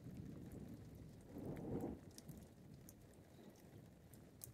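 Raindrops pattering into puddled water on wet wooden deck boards, heard as scattered sharp ticks, over a low rumble of thunder that swells about a second and a half in.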